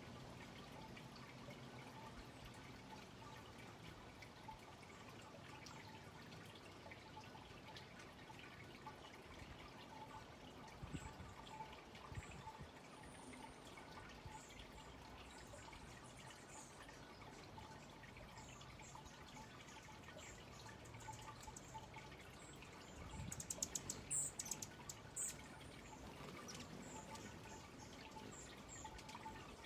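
Faint outdoor quiet with scattered short, very high chip notes of hummingbirds, a quick burst of louder sharp chips about 23 to 25 seconds in.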